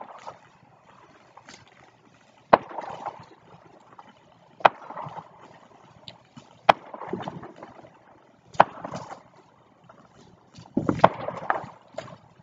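Ground fountain firework spraying sparks, with a sharp crack about every two seconds, each followed by a second or so of crackling and hissing. The pops come thicker near the end.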